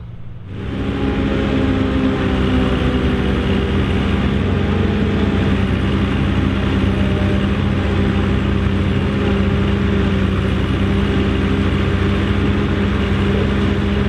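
Ford 5000 tractor engine working under steady load while driving a one-row Pöttinger Mex forage harvester, which chops corn and blows silage out of its spout. It is a steady, loud machine drone with a whir, and it comes in abruptly about half a second in.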